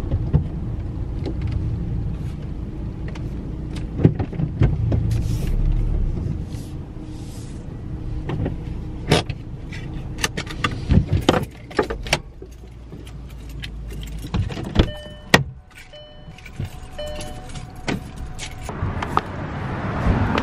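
A car engine running as the car is parked, with scattered clicks and knocks; after the engine hum drops away, a short tone repeats several times, and near the end broad noise swells as the car door is opened.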